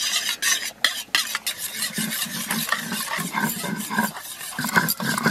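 Flat metal spatula stirring raw eggs and chilli powder in a steel bowl, scraping and clinking against the metal in quick repeated strokes.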